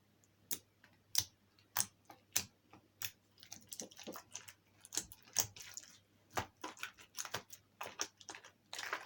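Jelly slime being kneaded by hand with toothpaste mixed in, making irregular sharp clicks and small squelches, sparse at first and coming faster from about four seconds in.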